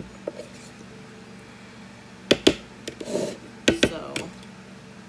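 Kitchenware being handled on a counter: two pairs of sharp clacks about a second apart, with short scraping and rustling between them.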